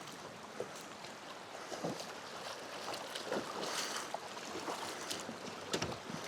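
River water splashing and lapping, with scattered small knocks and taps.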